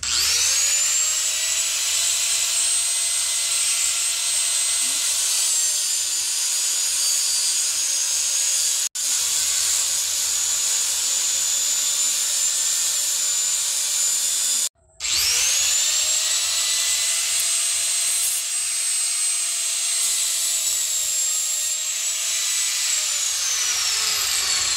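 Electric angle grinder spinning up to a steady high whine and grinding into a coil of steel rod. The sound cuts out briefly about fifteen seconds in, the grinder spins up again, and it winds down with a falling whine near the end.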